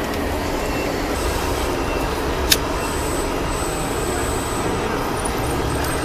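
Radio-controlled scale construction machines running, led by a Komatsu D65-PX model bulldozer working a sand pile: a steady, engine-like rumble, with one sharp click about two and a half seconds in.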